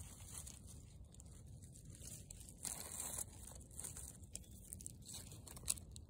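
Faint rustling and crumbling of loose soil and dry leaf litter handled by fingers, with a louder scrape about two and a half seconds in and a sharp click near the end.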